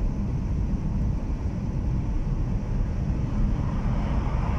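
Steady road and engine rumble of a moving taxi heard inside its cabin, with a brief swell of hiss about four seconds in.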